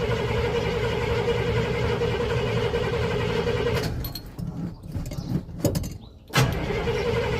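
Cadillac 429 V8 being cranked by its starter without catching: a steady starter whine over a rhythmic chug, in two bouts, the first stopping about four seconds in and the next starting about six and a half seconds in. The engine has sat a long time and does not fire until fuel is poured into the carburetor.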